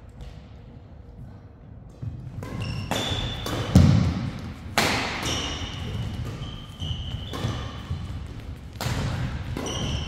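Badminton rally: rackets striking the shuttlecock with sharp cracks about once a second from about two seconds in, one hit with a heavy thud about four seconds in. Court shoes squeak briefly on the floor between shots.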